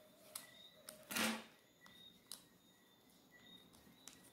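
Faint clicks and light taps of a small screwdriver and tiny screws on a tablet's frame as the screws are fitted back in, with one louder soft knock about a second in.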